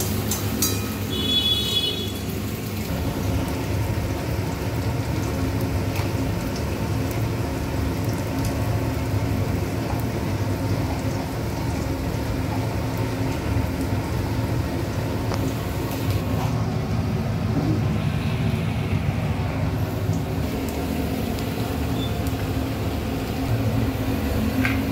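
Steady low mechanical hum made of several even tones, like a motor or fan running. A brief high tone sounds about a second in.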